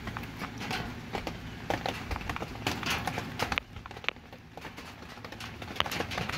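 Irregular sharp clicks and taps over rustling, close to the microphone: a rooster's beak and feathers knocking and brushing against the phone. It goes quieter in the middle, with a few louder clicks near the end.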